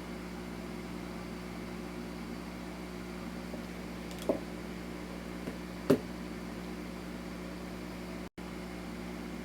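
Steady low electrical hum of room background noise, with two brief soft taps in the middle; the sound cuts out completely for a split second near the end.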